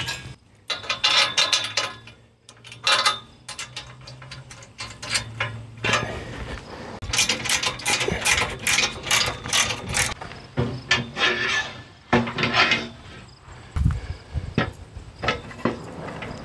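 Ratchet wrench clicking in quick runs as bolts are tightened, with short pauses between runs. A single low thump near the end.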